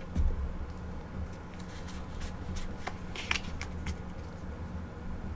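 Pokémon trading cards handled in the hands, shuffled and slid against one another: light rustling with scattered soft clicks and snaps of card stock, over a faint steady room hum.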